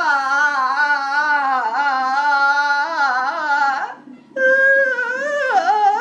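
A woman in labour crying out in pain through a contraction: two long, wavering wails, with a short break for breath about four seconds in.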